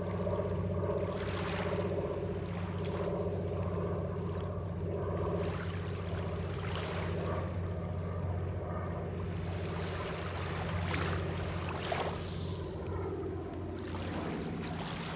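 Small waves lapping at a pebbly shoreline, a soft swish every second or few, over a steady low hum.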